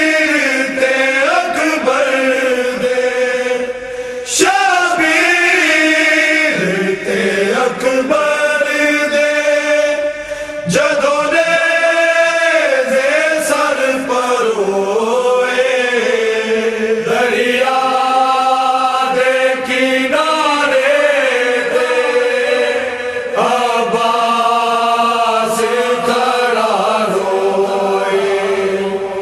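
Chanted vocal recitation in long, held notes that waver and glide slowly between pitches.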